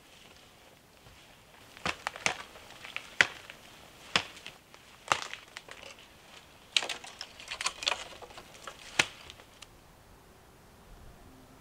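A string of sharp snaps and crunches of dry wood and forest litter, about a dozen, starting about two seconds in and stopping a couple of seconds before the end.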